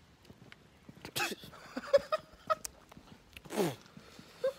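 A man's wordless vocal reactions to a swig of cognac from a hip flask: short grunts, then a throaty exhale that falls in pitch about three and a half seconds in.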